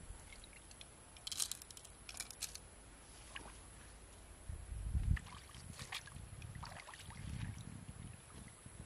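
Pond water sloshing and splashing lightly as a pole and a net are worked in the shallows. There are sharp clicks about a second and two seconds in, and a low rumble a little past halfway.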